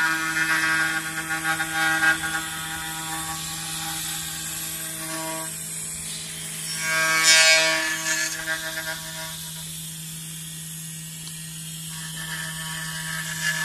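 CNC router's 12 kW air-cooled HITECO spindle running with a steady whine as its cutter carves wood, with a louder, harsher stretch of cutting about seven seconds in.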